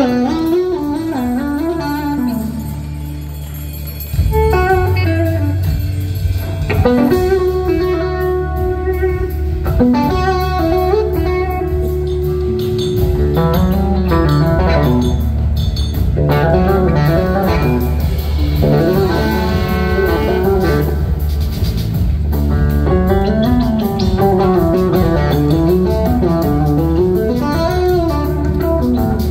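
Live electric guitar playing a bluesy lead line whose notes glide up and down, over a sustained low bass. The band comes in louder about four seconds in.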